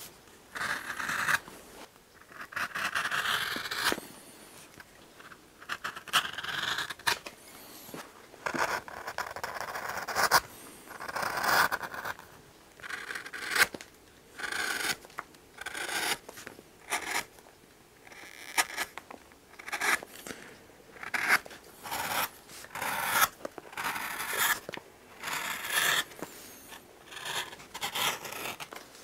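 Shoemaker's knife trimming the overhanging edge of stacked leather heel lifts: a long series of short slicing, scraping cuts through the leather, roughly one a second.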